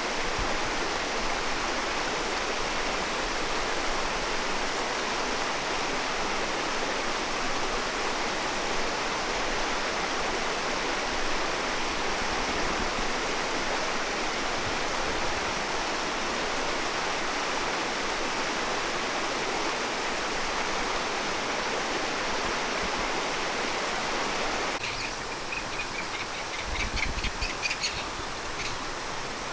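Waterfall with a steady rush of falling water. Near the end the rush drops to a quieter, thinner sound, and a quick series of high chirps is heard briefly.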